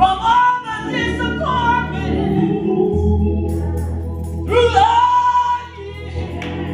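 Live gospel music: a woman's voice singing long held notes over organ-toned keyboard chords and electric bass.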